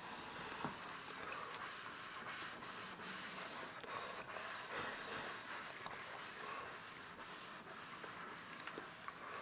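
Soapy sponge scrubbing a stainless steel sink basin: steady wet rubbing in repeated quick back-and-forth strokes.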